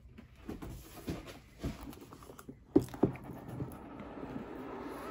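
Cardboard packaging being handled: scattered soft knocks and rustles, then two sharp knocks a little under three seconds in as the boxed tablet is set on the desk. After that comes a steady sliding rustle of cardboard as the lid of the tight-fitting retail box is worked off.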